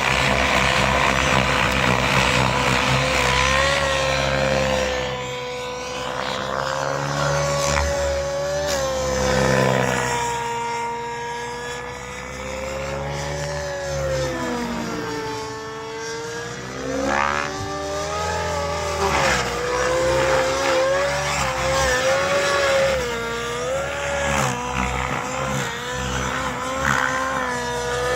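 Goblin Black nitro RC helicopter in flight, its O.S. 91HZ two-stroke glow engine running at high revs under the rotor. The pitch wavers up and down with the manoeuvres and swoops low then high about sixteen seconds in.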